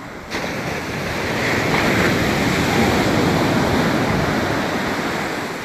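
Ocean surf: a wave breaking and its wash rushing up the sand. It starts abruptly, swells to its loudest about two to three seconds in, then eases off.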